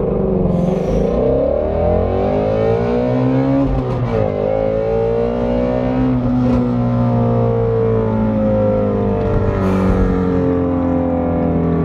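Ford Mustang Shelby GT350's flat-plane-crank V8 at full throttle off a launch-control start, heard from inside the cabin. The revs climb, drop at a gear change about four seconds in, climb again, then level off and ease slightly.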